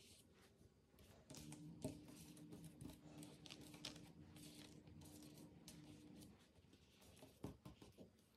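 Very faint handling noises of hands braiding soft dough strands on a marble countertop: scattered soft taps and rustles, with a faint steady hum underneath for a few seconds.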